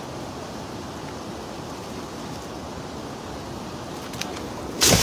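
Steady outdoor wind noise by a river, with a few faint clicks and a short, loud rustle or bump near the end.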